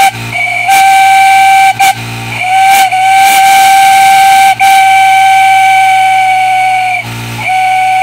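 A single-note steam whistle blown on compressed air in a run of blasts, some short and some lasting two seconds or more, each holding one steady pitch. A low hum fills the short gaps between blasts.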